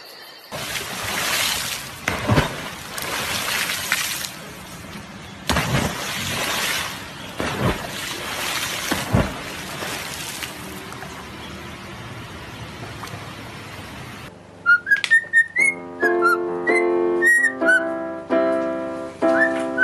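A rushing noise of moving water with several louder swells. About fourteen seconds in it gives way to a cockatiel whistling short rising notes over a run of piano notes.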